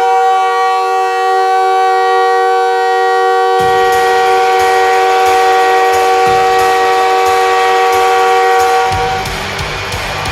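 Hockey goal horn blasting a loud, steady multi-note chord. About three and a half seconds in, the goal song music starts under it. The horn cuts off near the end, leaving the music playing.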